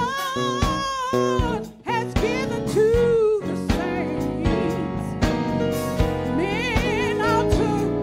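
Gospel music with a solo voice singing over instrumental backing with a steady beat.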